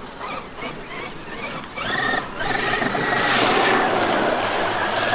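Traxxas X-Maxx RC monster truck's brushless electric motor and drivetrain whining as it drives, the whine rising in pitch about two seconds in as it speeds up.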